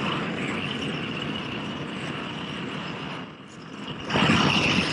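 Propane roofing torch burning with a steady rushing noise as its flame heats a torch-down modified bitumen roll. It drops off briefly about three and a half seconds in, then comes back louder.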